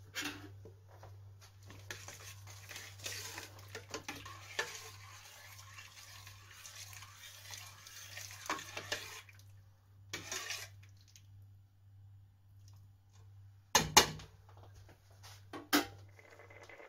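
Single cream being poured and stirred into a stainless steel saucepan of asparagus soup, a spoon scraping and clinking against the pot. Near the end come a couple of sharp metal clanks on the pot, the loudest sounds, over a steady low hum.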